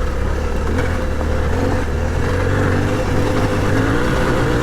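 Suzuki V-Strom 800DE's parallel-twin engine running steadily while riding a dirt trail, the note rising and falling a little with the throttle.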